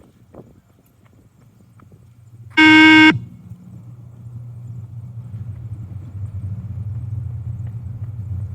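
Beep-test (multistage shuttle run) signal tone: a single loud electronic beep about half a second long, a couple of seconds in, marking the end of a shuttle at stage 5. After it a low steady hum grows gradually louder.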